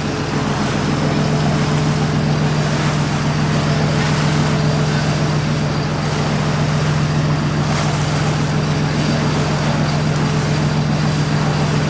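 A fishing boat's engine running steadily with a low hum, under a hiss of wind and water.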